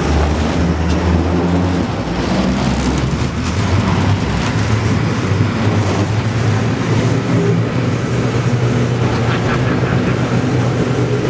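Sportfishing boat's engines running steadily under way, with water rushing and splashing in the wake; the engine hum shifts a little higher about three seconds in.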